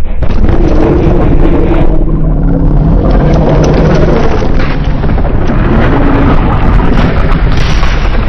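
Synthetic monster roar sound effect, loud and long, with a wavering low pitch under a dense rough noise. Its texture changes about two seconds in and again near the end.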